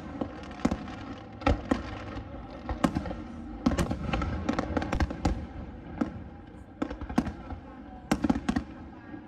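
Aerial fireworks bursting overhead: a rapid, irregular string of sharp bangs, some of them close together, over a steady noisy background.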